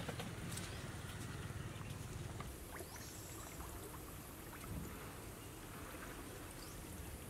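Faint outdoor background noise with an unsteady low rumble and a few small scattered clicks.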